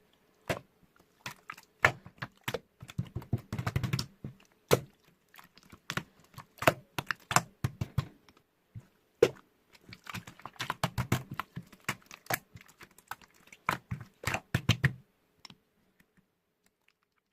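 Irregular clicks and taps in uneven clusters, some with a dull thump beneath, stopping about fifteen seconds in.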